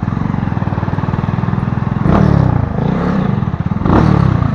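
Kuba Superlight chopper motorcycle engine pulling away from idle and accelerating, its note changing sharply twice, about two and four seconds in.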